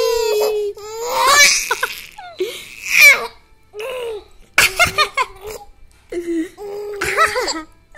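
Baby laughing in a run of separate bursts of giggles and squeals, with short pauses between them.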